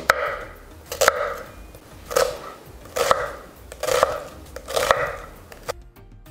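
Kitchen knife dicing an onion on a wooden cutting board: six crisp cuts, about one a second, each a crunch with a sharp knock of the blade on the board. Background music comes in near the end.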